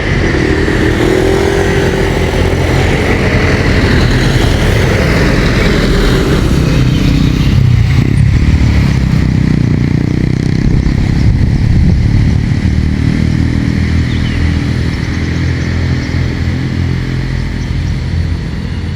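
Diesel engine of a large vehicle, a Mitsubishi Colt Diesel truck, running under load as it passes close by. Its note shifts in pitch over the first few seconds, and the deep drone is loudest about halfway through.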